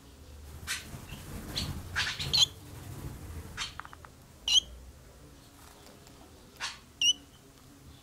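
Swallows at a nest giving short, sharp chirps and twitters, a few single calls spaced a second or two apart, some as quick falling whistles.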